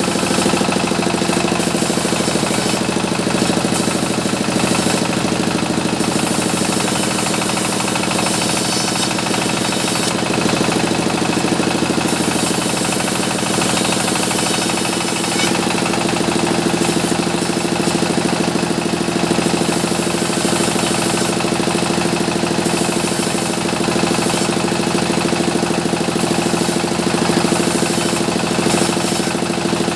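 Sawmill machinery running steadily: a constant engine-like hum with a hiss across the high end that swells and eases in stretches.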